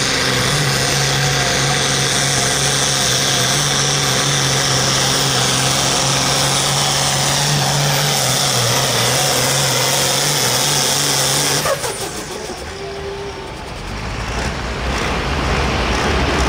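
Modified International Harvester pulling tractor's engine running flat out under load down the track: a loud, steady drone with a high whine over it. It cuts off abruptly about twelve seconds in as the pull ends, leaving a quieter low rumble.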